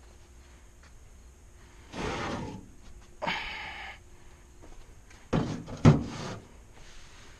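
A few short scraping, sliding noises, then a sharp knock about six seconds in, as of tools or parts being handled and set down.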